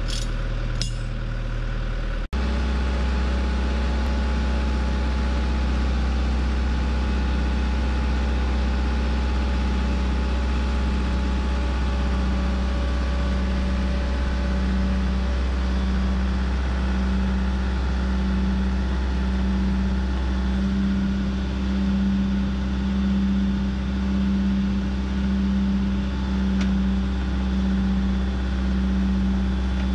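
Diesel engine of a John Deere 120 excavator running steadily, after a brief sudden break about two seconds in. From partway through, a low pulsing about once a second rides on the engine note.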